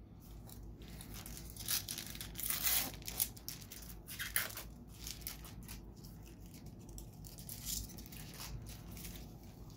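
A 2012 Panini Golden Age trading-card pack being torn open by hand: a run of short crackling tears and crinkles of the wrapper, loudest about two to three seconds in.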